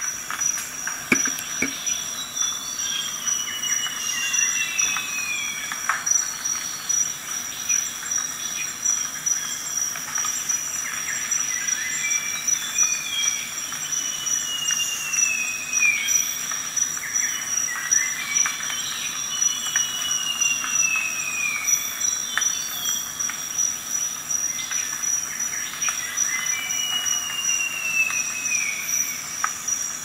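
Crickets trilling steadily at a high pitch, with a short descending whistle recurring every few seconds.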